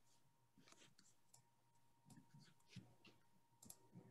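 Near silence: faint room tone with a few faint scattered clicks.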